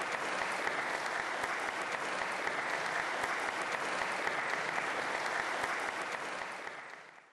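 Audience applauding, a dense, steady clapping that fades out near the end.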